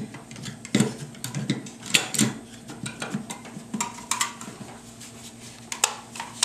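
Irregular clicks and knocks of rifle parts being handled and fitted together: the front chassis piece of a bullpup stock going onto an AK-47, with a brief squeak about four seconds in.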